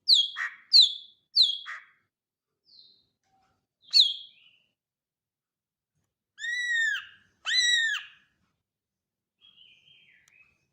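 Greater green leafbird (cucak ijo) singing: three quick, sharp down-slurred notes, a single similar note a couple of seconds later, then two longer arched whistles about a second apart, and a soft warble near the end.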